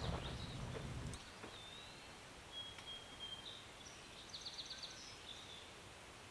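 Quiet outdoor ambience with faint bird calls: thin high whistled notes, then a quick high trill about four seconds in. A low rumble fades out about a second in.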